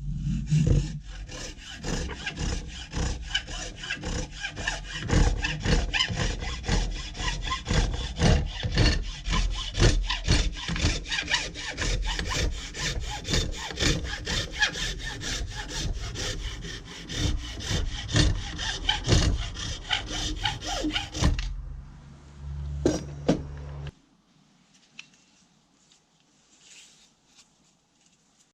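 Hand saw cutting with quick, even back-and-forth strokes that stop about 21 seconds in. A low hum with a couple of clicks follows, then it goes quiet a few seconds before the end.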